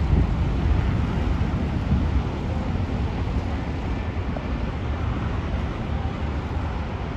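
Jet engines of a Boeing 737-800, with CFM56-7B turbofans, running at go-around thrust as the aircraft climbs away. The sound is a steady low rumble that slowly fades.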